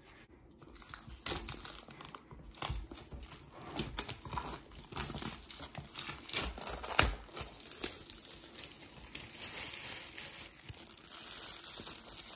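Clear plastic shrink wrap being pulled off an Apple TV 4K box and crumpled by hand: crinkling and crackling, with one sharp loud snap about seven seconds in and steadier crinkling near the end.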